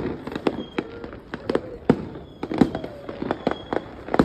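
Aerial fireworks bursting: an irregular run of sharp bangs and cracks, about two to three a second.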